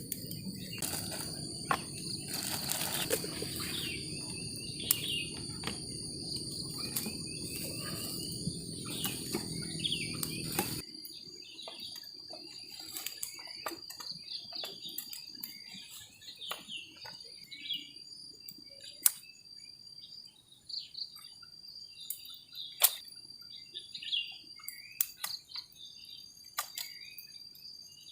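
Steady high trilling of night insects, with scattered sharp clicks and snaps from a freshly lit wood-fire stove. A low rumble under them stops abruptly about ten seconds in.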